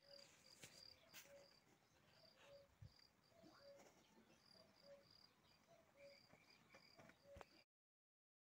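Faint chirping repeated about twice a second over quiet outdoor background, with a few soft clicks. The sound cuts off to silence about a second before the end.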